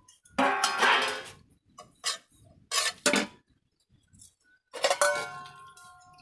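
Stainless steel plates and serving vessels clinking and knocking against each other. A knock about five seconds in leaves a ringing tone that dies away slowly.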